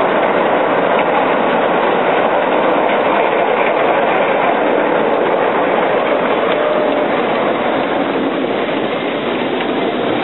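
7-1/4 inch gauge miniature railway train running along its track: a steady, loud rattle and rumble of the wheels on the rails.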